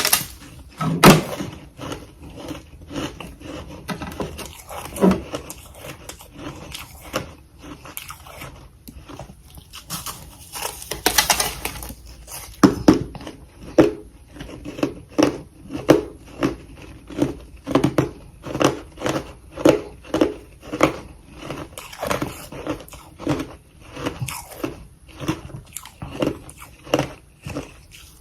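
Close-up chewing of powdery freezer frost: a string of crisp crunches, with a longer grinding crunch about eleven seconds in, then a steady chewing rhythm of about two crunches a second.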